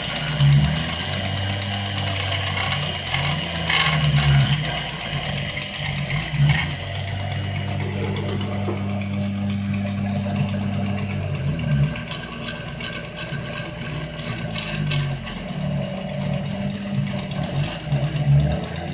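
Gammill Premier longarm quilting machine stitching while its added stepper motors drive the carriage, a steady mechanical hum whose pitch rises and falls every second or two as the carriage changes speed and direction.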